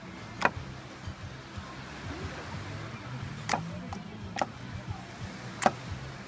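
Yellow slime being poked with the fingers in a glass bowl, giving off sharp little pops and clicks, four loud ones with fainter ones between.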